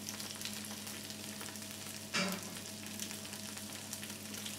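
Diced potatoes sizzling and crackling in butter in a small frying pan over a gas flame, with a steady low hum underneath. A short knock sounds about two seconds in.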